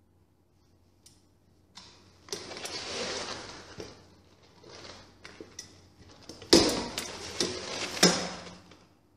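Hand-operated lever corker with plastic jaws being worked to compress a natural cork and drive it into a glass wine bottle: a run of clacks and scraping noises starting about two seconds in, with the loudest sharp knock a little past the middle and another sharp one near the end.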